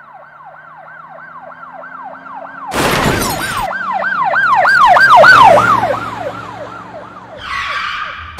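Police siren sound effect wailing in fast rising-and-falling sweeps, about four a second. About three seconds in, a loud crash lasting about a second cuts across it; the siren then swells louder and fades away, and a short burst of rough noise comes near the end.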